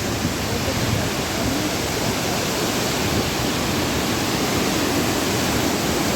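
Steady rushing noise of a large waterfall, even and unbroken.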